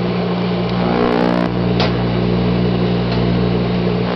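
Sharp Carousel 1100-watt microwave oven running with a loud steady electrical hum, a buzzy patch about a second in and a short sharp crackle just before two seconds. The owner says the oven has fried itself and does strange things when it makes popcorn.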